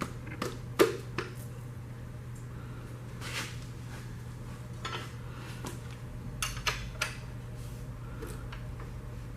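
Metal tools and engine parts clinking and knocking as an engine bottom end is taken apart, in scattered sharp clicks: the loudest about a second in and a quick cluster near seven seconds, with a short scrape between. A steady low hum sits underneath.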